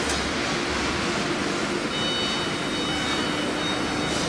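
Chencan ATC CNC router at work engraving a door panel: its spindle and drives give a steady machine whine over broad noise, with a high steady tone joining about halfway through.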